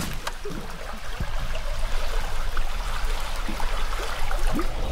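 Shallow stream flowing and rippling over rocks, a steady rushing of water.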